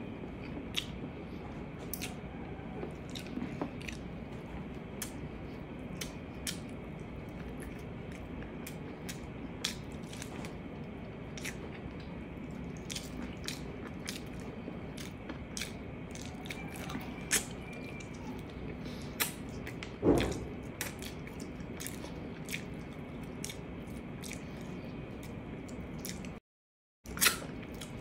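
Close-miked eating sounds: chewing of braised pork ribs and rice, with frequent short wet clicks. There is one louder thump about two-thirds of the way through, and the sound cuts out for a moment near the end.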